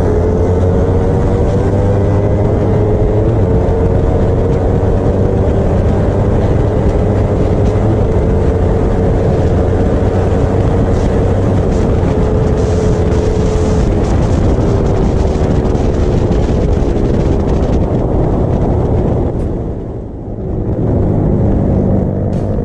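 Motorcycle engine running hard at high speed, heard from on the bike with wind rush over it, its pitch rising and falling gently with the throttle. About nineteen seconds in it drops away briefly as the throttle is closed, then picks up again.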